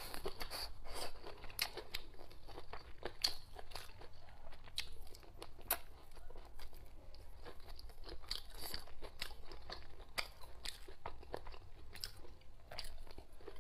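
A person chewing and biting food, with many small, irregular crunches and clicks.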